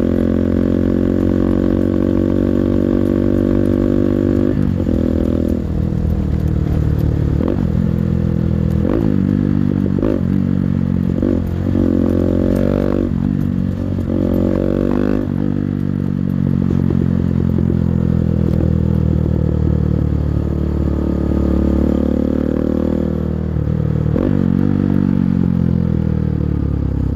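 200cc engine running at high revs, its pitch held level for the first few seconds, then dropping and climbing again over and over as the throttle comes off and back on, with a slower fall and a rise near the end.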